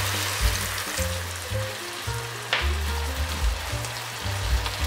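King oyster mushrooms and onions sizzling in a hot frying pan as water is poured in, with a brief louder crackle about halfway through. Background music with a bass line plays underneath.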